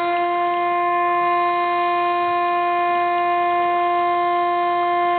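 Fire brigade call-up siren sounding one long, steady note: the signal summoning volunteer firefighters to assemble.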